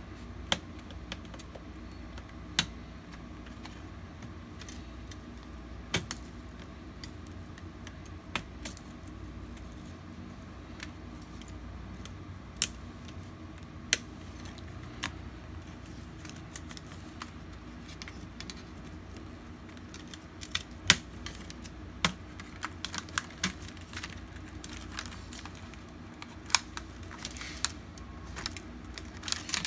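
Irregular sharp clicks and taps of small hand tools and plastic parts on an HP 15 laptop being taken apart to replace its keyboard, coming thicker in the last third. A steady low hum runs underneath.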